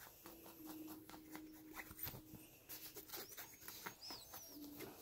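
Domestic cat growling low and faint, one drawn-out growl of about two seconds followed by a short one near the end, in annoyance at being coaxed to play. Soft rustling and light clicks of a nylon jacket sleeve as a hand moves toward her.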